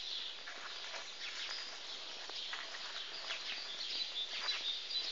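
Birds chirping: many short, high calls overlapping one another, with a thin high whistle near the end.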